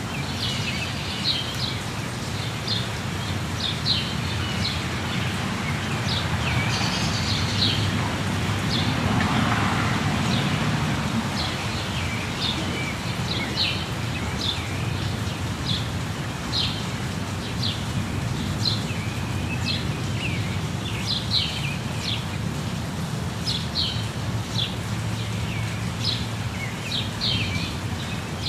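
Steady rush of a waterfall with many short bird chirps repeating over it; the water noise swells briefly about nine seconds in.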